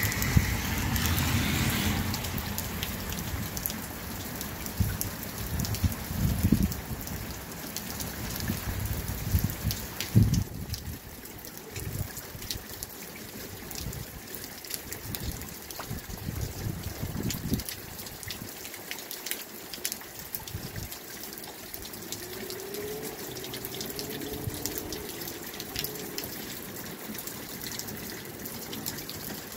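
Steady rain falling on a garden, with many small drops ticking close by and water trickling. Low rumbling thumps come and go through the first half.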